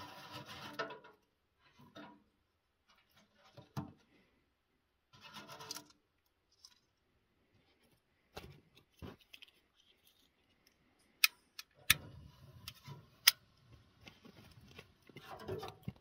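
Dry wood shavings rustling as they are stuffed into a small steel wood stove, with more rustles of handling every second or two. A little past the middle come three or four sharp clicks as the tinder is lit, then a low, soft crackling as the shavings catch fire.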